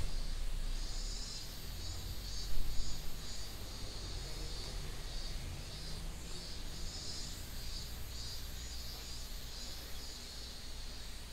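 Insects chirring steadily in a high, pulsing chorus, about two to three pulses a second, with a brief louder sound about two and a half seconds in.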